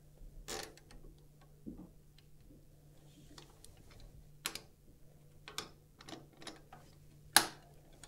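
Scattered clicks and knocks of plastic parts and cables being handled while a cable connector is plugged into a PC motherboard, with one sharp click near the end louder than the rest. A faint steady hum runs underneath.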